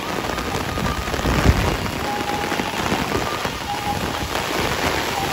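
Heavy rain pouring down, a dense patter of drops on a wet road, with a brief low thump about a second and a half in.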